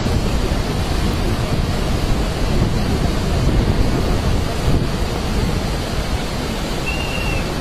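Swat River in flash flood: a muddy torrent rushing past in standing waves, a loud steady rush with a heavy low rumble.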